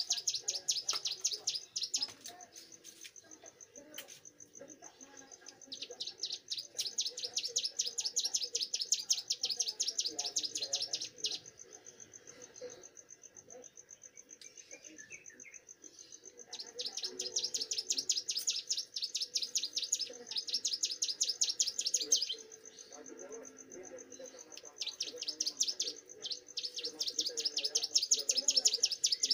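Young caged prenjak gunung (mountain prinia) singing: long trains of high, rapidly repeated notes, several a second, in four bouts of a few seconds each with short pauses between. A faint steady high whine runs underneath.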